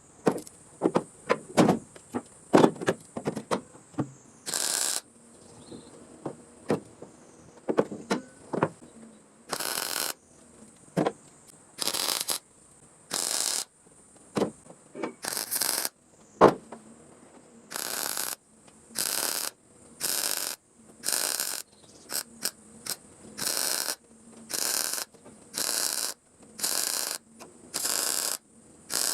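Welding a patch into a car's floor panel in short bursts of hissing and crackling, roughly one a second, after several seconds of scattered metallic clicks and knocks.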